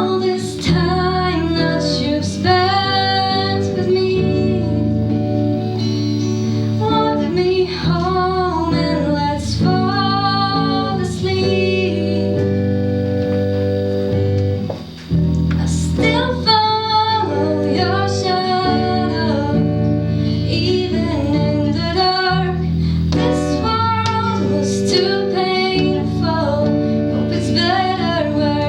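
A female voice singing a song over plucked guitar accompaniment, with a short break in the music about halfway through.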